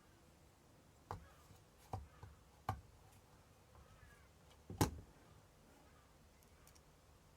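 A few sharp clicks and knocks as the parts of a Unilite CT2 torch are handled and fitted back together, four in all, the loudest about five seconds in.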